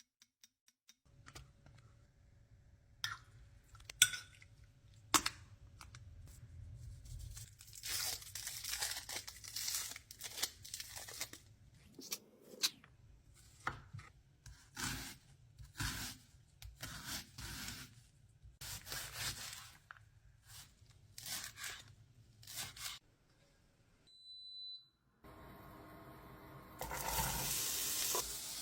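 Kitchen preparation sounds: a run of irregular clicks, knocks and rustling handling noises, then, in the last few seconds, a loud steady sizzling like food frying in a hot pan.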